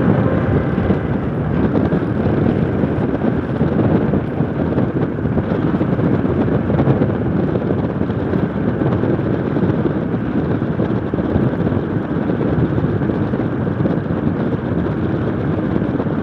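Steady wind rushing over the microphone of a moving vehicle, with road and engine noise underneath.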